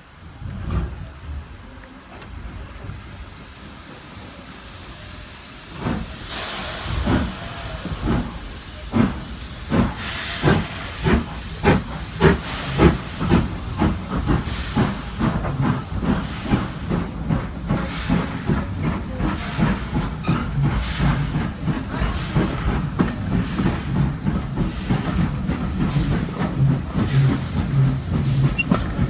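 Stanier Black 5 4-6-0 steam locomotive starting its train away, with a hiss of steam. Its exhaust beats begin about a second apart, about six seconds in, and quicken steadily into a fast rhythm as it gathers speed.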